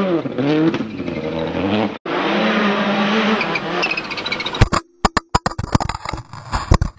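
Dubbed-in recording of a real Subaru rally car engine, revving up and down, cutting out briefly about two seconds in, then holding steady revs. In the last two seconds comes a rapid string of sharp cracks with short silences between them.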